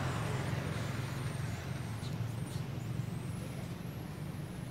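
Steady low rumble of background noise with a few faint high squeaks over it.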